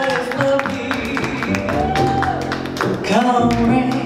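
A woman singing a jazz ballad, accompanied only by a plucked upright double bass; she holds several long notes.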